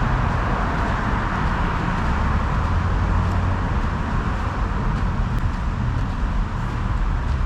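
Steady road traffic noise: a continuous rumble and hiss of passing cars with no single vehicle standing out.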